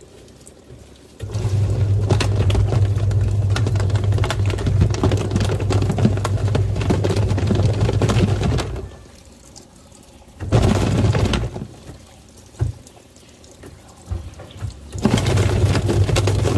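Twin-tub washing machine's wash tub running: a steady motor hum under churning, sloshing water. It stops after about eight seconds, gives a short spin around ten seconds, and starts again near the end.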